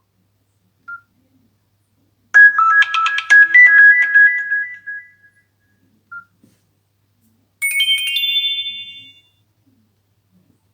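Short built-in electronic tones of a Nokia C5-00 phone playing one after another: a brief melody of a few notes starting about two seconds in, and a short jingle of rising notes about eight seconds in. Single short beeps come about one and six seconds in.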